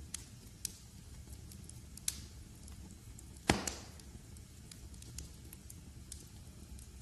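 Wood fire crackling in a fireplace: scattered sharp snaps over a low steady rumble, with one loud pop about three and a half seconds in.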